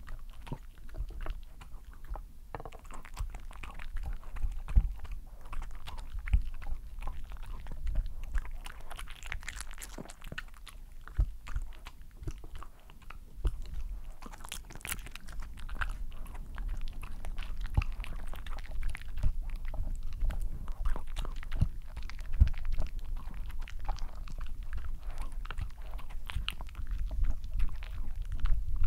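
A small dog eating black beans off a wooden board, recorded close to a sensitive microphone: irregular chewing and licking, many small clicks in no steady rhythm.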